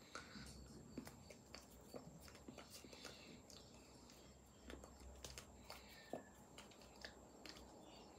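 Faint mouth clicks, lip smacks and breaths, with soft taps and rustles of hands, from a person silently mouthing words while signing; a faint steady high whine runs underneath.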